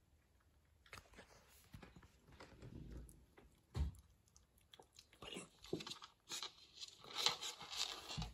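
Faint, irregular scuffling, scratching and clicking of a beagle puppy moving about on a laminate floor under a bed, with a dull thump about four seconds in and a denser run of scratching near the end.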